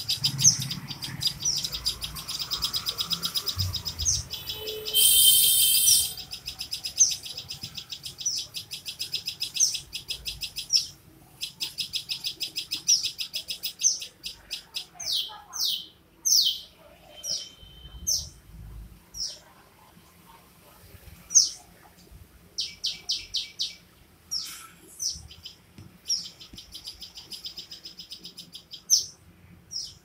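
Fledgling songbirds giving rapid, repeated high begging chirps. A louder, harsher burst comes about five seconds in, and in the middle there are several separate sharp, downward-sweeping calls.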